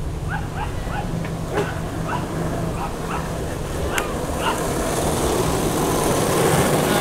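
Several skateboards rolling on asphalt, their wheels making a rising rushing noise that grows louder as the riders close in. Over the first few seconds there is a run of short high yips, two or three a second.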